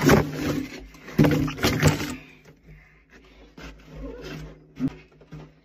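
Frozen food being handled and packed into a freezer: knocks and rustles of bagged frozen items, loudest in two bursts in the first two seconds, then scattered lighter knocks and a sharp click near the end.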